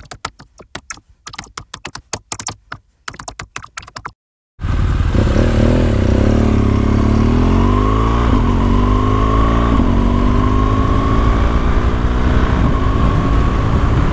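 Rapid typing keystroke clicks as title text is typed out, then a short silence. About four and a half seconds in, a motorcycle engine starts up loud from the on-board camera, accelerating with its pitch rising and dropping back twice at upshifts.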